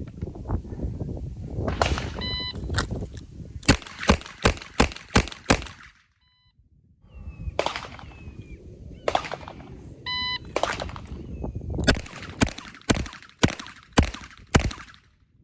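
A shot timer beeps, then a revolver fires a rapid string of about six shots; a fainter timer beep follows. After a pause, another timer beep and a second rapid string of about six revolver shots. Wind rumbles on the microphone throughout.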